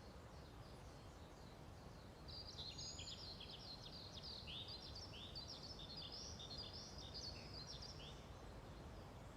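A small bird twittering in quick, rapid chirps, starting about two seconds in and fading near the end, over a faint steady low background hiss.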